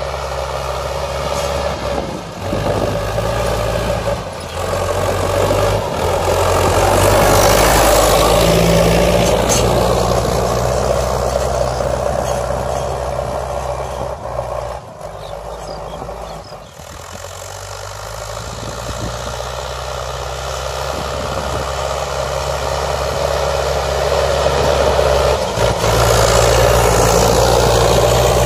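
Diesel engine of a Sonalika All Rounder 55 hp tractor running steadily under load while pulling a tine cultivator through dry soil. Its loudness and pitch shift several times, with a quieter stretch about halfway through.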